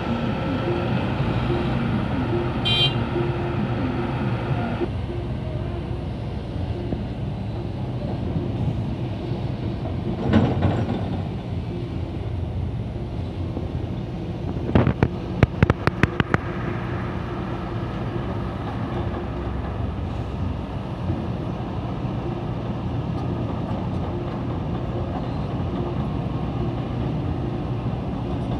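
Engines of heavy vehicles running steadily, with a brief swell about ten seconds in and a quick series of sharp knocks around fifteen seconds in.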